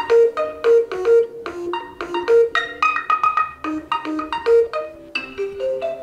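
Built-in ringtones of a Realme X50 Pro 5G previewed one after another: short, bright, marimba-like melodies of quick plucked notes. The tune switches to a new ringtone a little past halfway and again near the end.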